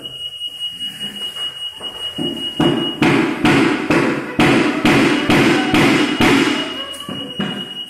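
A steady high-pitched electronic beep tone, the kind an EAS anti-theft gate's alarm gives, breaking off about three seconds in and returning near the end, over a run of sharp knocks at about three a second starting about two seconds in.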